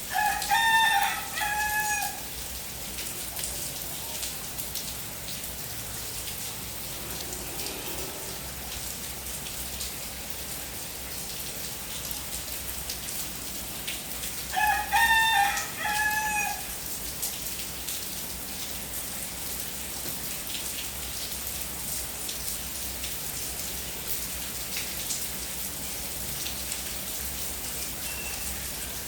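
Steady rain falling, with a rooster crowing twice: one cock-a-doodle-doo right at the start and another about halfway through.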